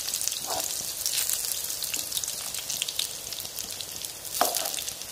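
Minced-meat seekh kababs sizzling and crackling as they shallow-fry in oil in a frying pan. A metal spoon scrapes across the pan about half a second in and again near the end as the kababs are turned.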